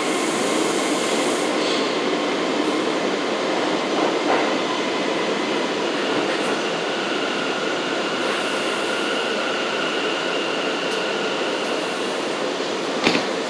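R179 subway car running on the rails, a steady rumble and rattle of wheels and car body, pulling into a station. From about six seconds in, a steady high-pitched whine joins it, and near the end there is one sharp knock.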